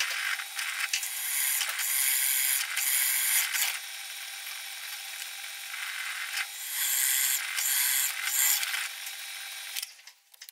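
Metal being worked by hand in back-and-forth rasping strokes, each just under a second, in runs of a few strokes with a steadier scraping stretch between them. Plausibly the cutting of a relief notch in a metal bracket to make it easier to bend.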